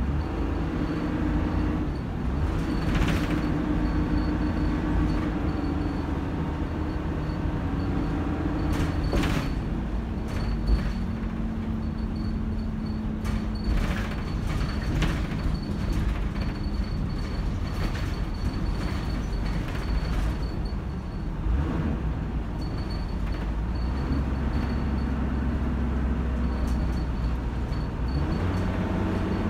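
Dennis Dart SLF single-decker bus with an Allison AT545 automatic gearbox, heard from inside the saloon while being driven hard. The engine runs steadily under load, its note drops sharply about nine seconds in and rises again near the end, and the body gives off scattered clicks and rattles.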